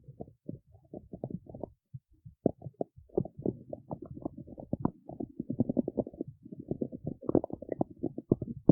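Stomach growling: a rapid, irregular run of gurgles and squelches, easing briefly about two seconds in, then bubbling densely again.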